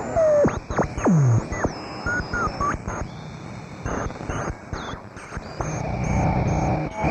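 Medium-wave (AM) radio being tuned across the band: whistles that sweep down and up in pitch, crackling static and clicks, and brief snatches of stations.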